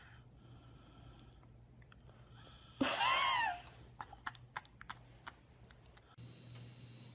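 A single high-pitched animal call, under a second long, rising and then falling in pitch, followed by a few faint clicks.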